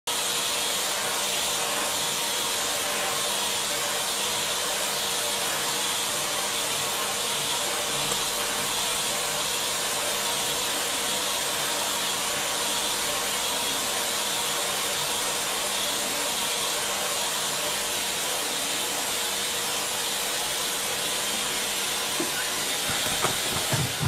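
Vacuum cleaner running steadily with its hose nozzle held against a duck's feathers: an even rushing hiss of suction over a faint motor hum.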